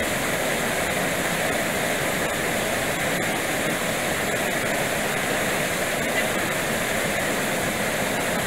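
Steady rush of a small waterfall pouring into a rock pool, an even noise that holds the same level throughout.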